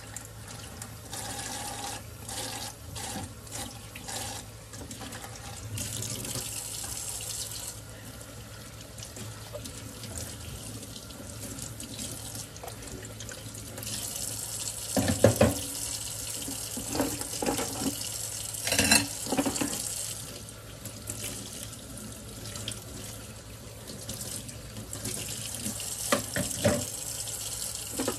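Kitchen faucet running into a stainless steel sink while dishes are hand-rinsed under the stream, the splashing getting louder whenever something is held under the tap. A few sharp knocks of dishes being handled, the loudest about halfway through and again near the end.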